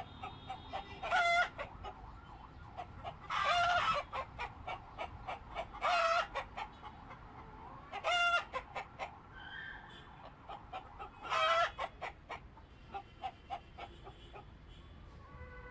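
Chickens clucking with many short notes, with five loud pitched calls of about half a second each spaced a few seconds apart.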